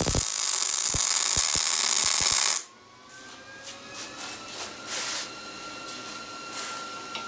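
MIG welder arc running steadily as a steel tube is tack-welded to a steel base plate, stopping abruptly about two and a half seconds in. Afterwards a few light metallic ticks and taps.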